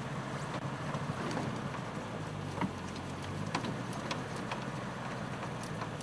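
Game-drive vehicle's engine idling with a steady low hum, with scattered sharp clicks and crackles at irregular intervals.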